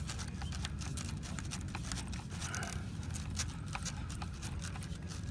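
Irregular small clicks and taps of a screwdriver and pliers on metal as a Loctited buckle-latch screw is tightened, over a steady low hum.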